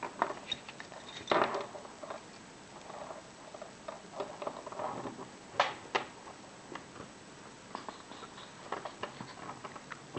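Small metal clicks, taps and scrapes from handling a cheap 65 mm laminated padlock and lock picks, with a sharper click about a second and a half in and another near six seconds.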